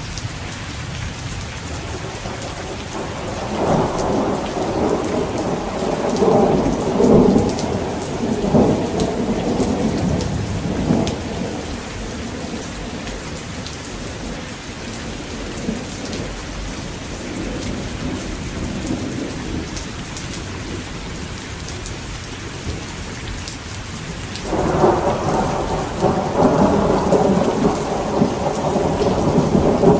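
Steady rain falling, with thunder rumbling twice: a long rolling peal from about three seconds to eleven seconds in, and another that breaks in suddenly near the end and is still rolling as the clip closes.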